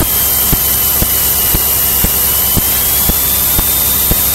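Light aircraft in flight: steady engine and airflow noise with a thin steady whine and a regular tick about twice a second.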